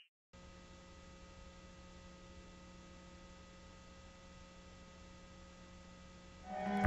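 Faint steady electrical hum with a little hiss, holding a low tone and a few higher steady tones. Bowed-string music swells in near the end.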